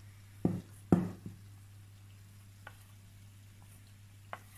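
A wooden spoon knocks twice against a metal bowl while squid rings are tossed in flour, followed by quiet stirring with a few faint taps.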